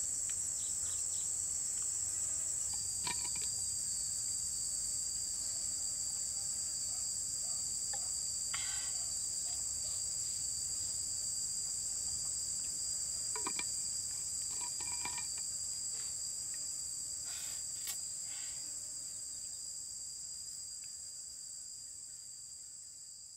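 Steady high-pitched insect chorus in the forest, with a second, slightly lower steady insect tone joining about three seconds in. A few faint clicks and taps come through now and then, and the whole sound fades out near the end.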